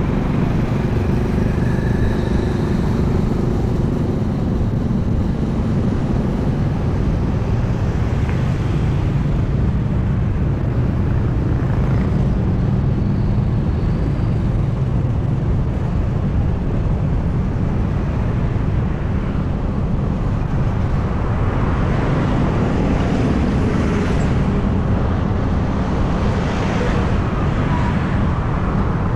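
Steady low engine and road rumble from the vehicle carrying the camera as it drives through city traffic, with other vehicles passing and more traffic noise near the end.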